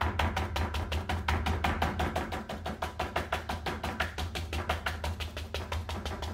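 A wide bristle brush loaded with dark oil paint is tapped rapidly and evenly against a stretched canvas, several knocks a second, stippling in the dark base of a row of trees.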